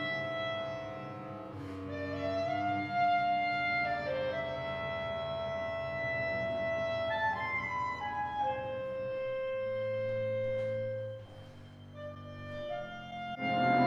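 Solo clarinet playing long held notes over a low, sustained accompaniment from a small chamber ensemble. The music grows suddenly louder and fuller just before the end.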